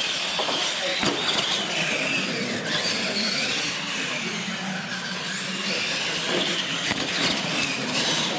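Radio-controlled monster trucks racing on a concrete floor: the whine of their electric motors and gears rises and falls as they accelerate and turn, over a hiss of tyre noise. It starts suddenly at the launch.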